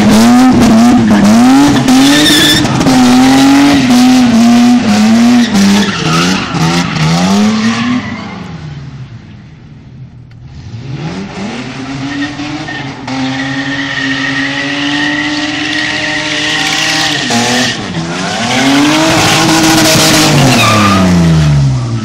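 BMW E30 doing burnouts and donuts: the engine is revving hard with its pitch swinging up and down, and the tyres are squealing and skidding. About a third of the way in the sound fades as the car moves off. It then climbs back to high, held revs with the tyres spinning, and the revs fall away near the end.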